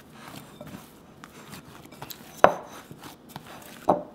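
Hands punching down and deflating risen yeast dough in a glass mixing bowl: soft squishing and pressing, broken by two sharp knocks, about two and a half seconds in and near the end.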